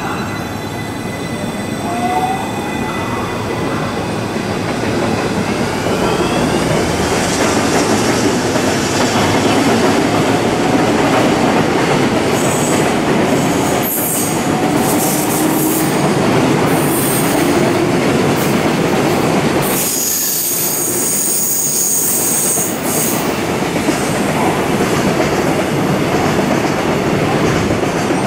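JR West 223-series electric train pulling out of the platform. Its motors whine up in pitch as it starts moving, then the cars run past with building wheel-on-rail noise. Sharp, high wheel squeals come partway through.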